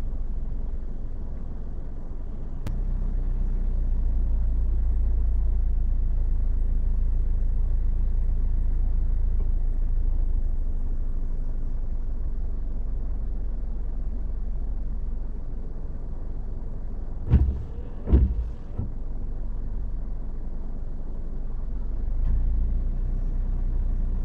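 Car driving slowly, heard inside the cabin: a steady low road and engine rumble. Two sharp knocks come close together about three quarters of the way through.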